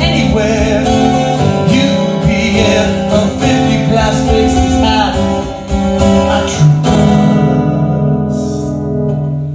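Acoustic guitar song with singing, strummed chords that settle about two-thirds of the way through into a final held chord ringing out to the end.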